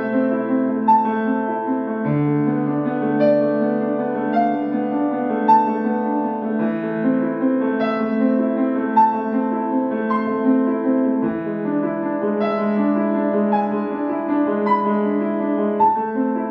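Acoustic grand piano played solo: a melody of single notes over a steady accompaniment and held bass notes that change every few seconds.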